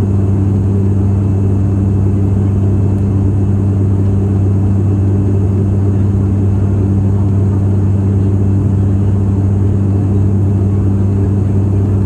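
Turboprop airliner's engine and propeller droning steadily, heard inside the cabin in cruise: a loud, constant deep hum with a strong low tone and its overtone.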